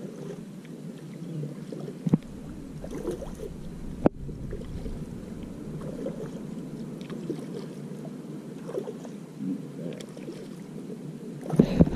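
Water swishing and lapping against the hull of a moving fishing kayak, a steady wash of noise, with a couple of sharp knocks about two and four seconds in.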